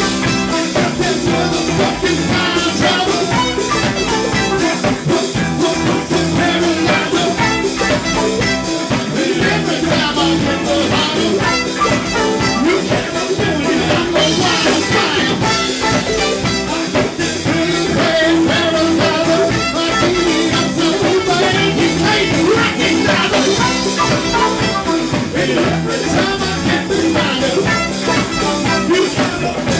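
Live band playing an upbeat rock song with drum kit and steady beat, with singing.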